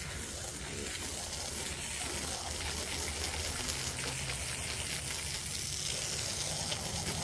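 Tru-Cut sawmill running steadily while sawing a maple log: an even hiss over a low, steady engine hum.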